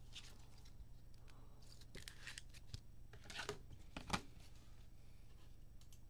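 Trading cards being slid into plastic penny sleeves and rigid top loaders: a few faint scraping swishes and light plastic clicks, the loudest about four seconds in.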